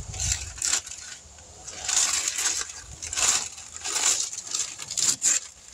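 Blue painter's tape being peeled off a truck's body and the newspaper masking crumpling, in a string of short rips and paper crinkles at uneven intervals.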